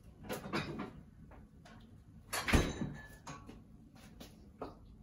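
Refrigerator being rummaged in, with a few short knocks, then the fridge door shut with a thud about two and a half seconds in, followed by a few light clicks.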